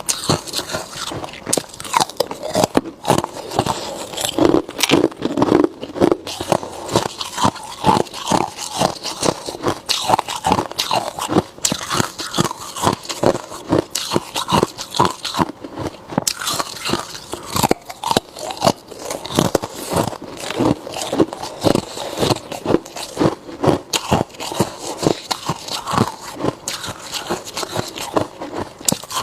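Hard ice being bitten and chewed close up: a rapid, continuous run of loud crunches and cracks.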